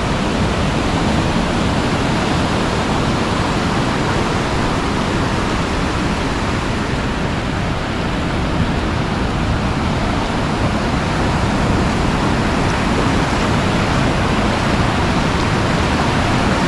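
Ocean surf breaking and washing up over the sand, a loud, steady rushing noise that does not let up.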